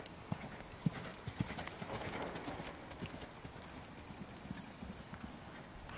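Hoofbeats of a Warmblood x Welsh pony moving on soft indoor-arena footing: a run of dull thuds.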